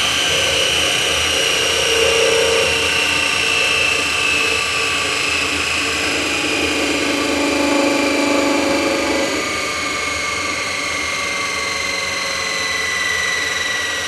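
Large old 220-volt DC motor spinning freewheel, its whine of several tones falling slowly in pitch as it runs down, over a mechanical rushing hiss. A lower hum stops about two-thirds of the way through.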